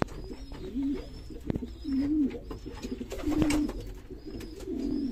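Homing pigeon cooing: a run of low, wavering coos about a second apart, with a few light knocks in between.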